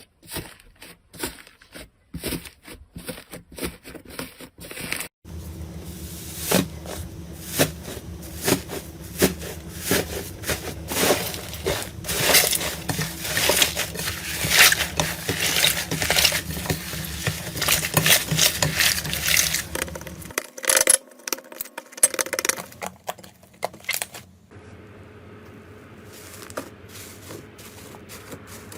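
Slime being pressed and stretched by hand, giving a run of sharp crackling clicks and pops: sparse at first, then dense over a steady low hum for a long stretch, sparse again, and fading to a quiet hiss near the end.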